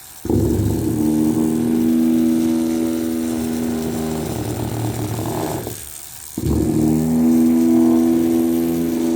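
Small electric motor of a toy running with a loud, steady-pitched hum. It cuts out about six seconds in and starts again half a second later.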